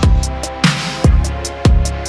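Electronic background music. Deep kick-and-bass hits come about every half second, each dropping in pitch, under held synth notes.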